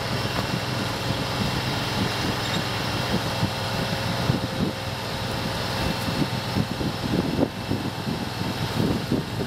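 Engine of the vehicle moving a grain auger, running steadily with a hum, with uneven low thumps and knocks throughout.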